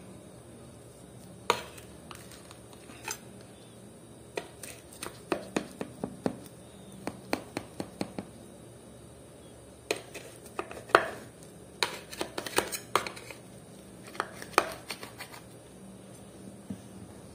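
Table knife cutting soft baked bread in a metal baking pan, the blade knocking and scraping against the pan in irregular sharp clicks and taps.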